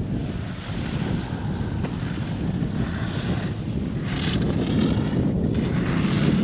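Wind buffeting the microphone in a steady low rumble that grows slightly louder, with a few swells of hiss over it, the strongest about four to five seconds in.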